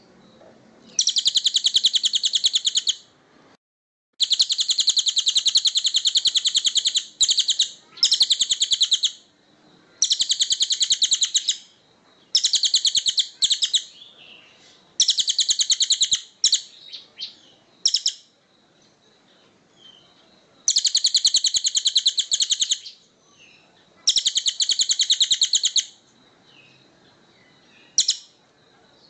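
A bird's very fast, dry rattling trill, high-pitched, given in bursts of one to two seconds about ten times with short pauses between, as played on a master recording for training songbirds. A faint thin steady whine sounds in the gaps.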